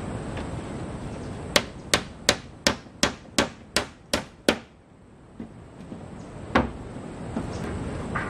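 Hammer nailing a wooden plank onto a cabin wall: nine quick blows, about three a second, then a single blow a couple of seconds later.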